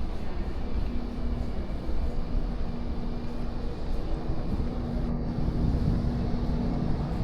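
Cruise ship ambience: a steady low rumble with a constant machinery hum running underneath.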